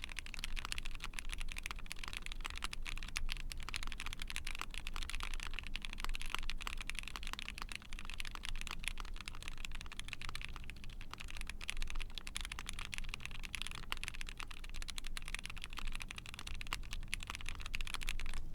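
Fast continuous typing on an ai03 Vega mechanical keyboard with a POM plate, lubed Gateron Mini linear switches and GMK keycaps: a dense stream of key clacks that stops at the end.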